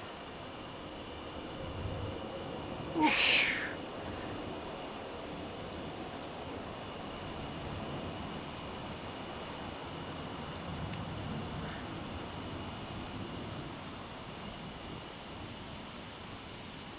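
A chorus of night insects, crickets, keeps up a steady high pulsing trill. About three seconds in there is one brief louder sound that falls in pitch.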